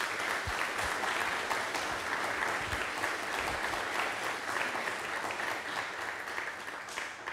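Audience applauding, a dense steady patter of many hands clapping that fades out near the end.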